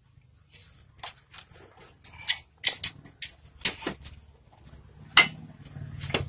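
Yamaha Vixion swing arm being worked into place on the frame by hand: a run of irregular metal clicks and knocks, the loudest a little after five seconds in.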